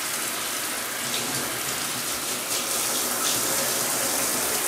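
Water running steadily from a tap into a bathtub while a cat is rinsed, with a few small splashes.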